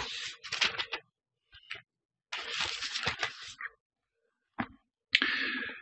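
Thin Bible pages being turned and handled close to the microphone: paper rustling in three bursts, with a short click between the second and third.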